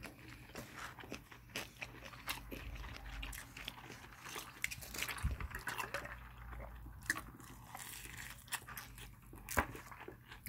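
Someone eating fried chicken: crunchy bites and chewing, with scattered short clicks and taps, the sharpest about nine and a half seconds in.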